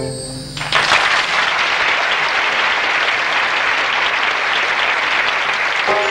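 Theatre audience applauding a song just finished; the held final chord of the accompaniment fades out in the first moment, then loud, steady clapping breaks in. Near the end the accompaniment starts the next number under the applause.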